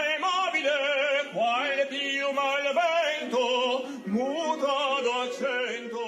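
A male operatic tenor singing with strong vibrato, holding long notes and sliding between them.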